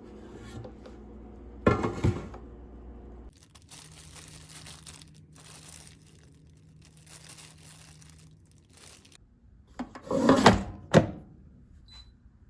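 Thuds and knocks of things being handled in a small room: a pair of sharp knocks about two seconds in, a louder cluster of knocks near the end, and faint rustling between them.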